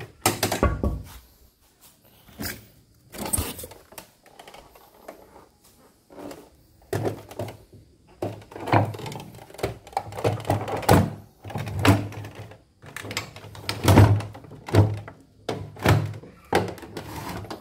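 Irregular knocks and thumps as a portable CNY embroidery machine's plastic body is moved and handled on a wooden workbench, some hits with a short low ring.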